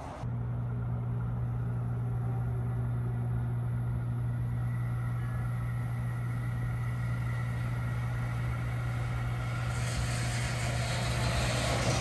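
A steady low hum, then from about ten seconds in the rising noise of a UTA TRAX light-rail train coming into the platform, growing louder as it nears.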